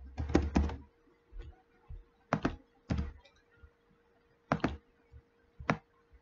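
Computer keyboard typing: a quick run of keystrokes at the start, then single key presses or clicks every half second or so, with longer gaps later.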